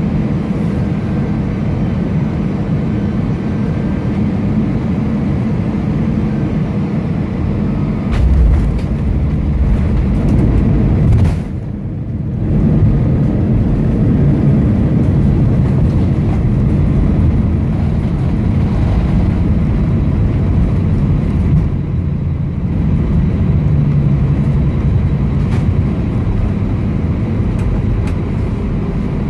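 Cabin noise of an Airbus A320 airliner landing: a steady low rumble of engines and airflow. There are heavy low thumps about eight and eleven seconds in, a brief dip, and then the rumble rises again.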